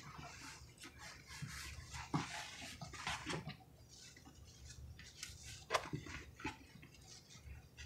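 Wet sponges being squeezed and rubbed in a tub of thick, creamy cleaner suds: irregular squelching and squishing of soapy foam, with a few louder squelches about two, three and six seconds in.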